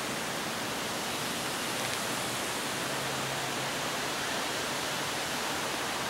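A steady, even hiss with no distinct events, level throughout.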